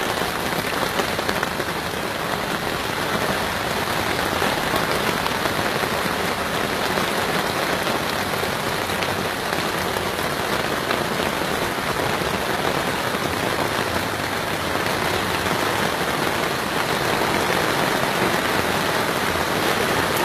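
Heavy rain pouring down in a steady, dense downpour.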